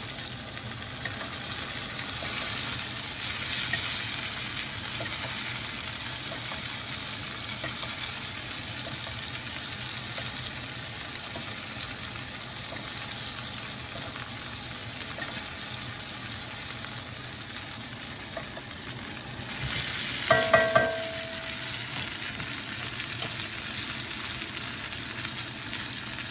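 Rib eye steak sizzling steadily in butter in a cast-iron skillet as it is spoon-basted, the butter-basting stage at the end of cooking. About twenty seconds in, a few brief ringing clinks.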